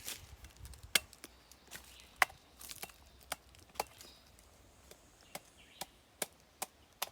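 A series of sharp, irregular clicks and snaps, about two a second, the loudest about one and two seconds in.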